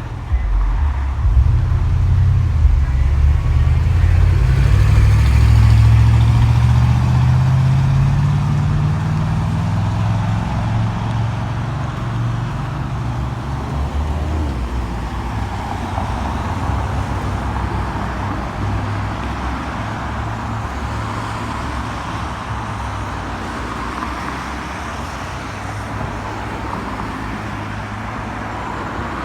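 City street traffic: a heavy vehicle's low engine rumble, loudest and rising slightly in pitch during the first ten seconds, then easing into a steady wash of passing traffic.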